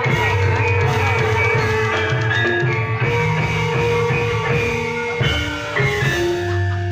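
Loud music from a live band: a drum kit keeps a steady beat under held melodic notes.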